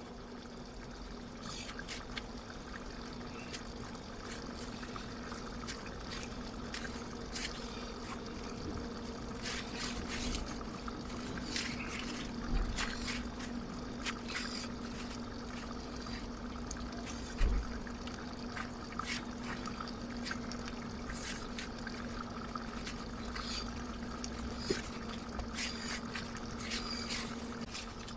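Wheat dough being kneaded by hand: irregular wet squelching and clicking, with a steady low hum underneath and a couple of dull thumps in the middle.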